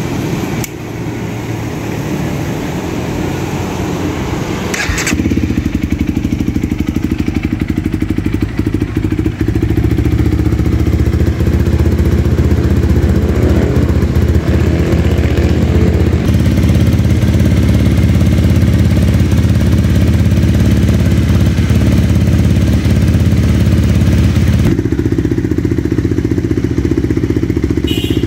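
Honda CRF300L's single-cylinder engine idling steadily through a newly fitted T4 Pro full stainless-steel exhaust with an aluminium muffler.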